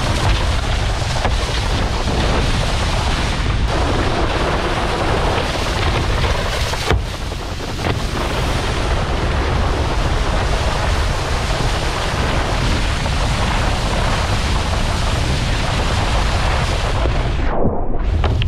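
Wind buffeting an action camera's microphone as it travels at speed over the water, a loud steady rush with a deep rumble, mixed with the spray of a wakeboard cutting through the water. The hiss dulls briefly near the end.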